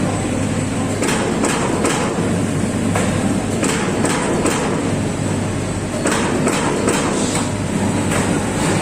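Amada Pega 357 CNC turret punch press punching stainless steel sheet: a run of sharp punch strikes, two to three a second, over a steady machine hum, with a short pause about five seconds in.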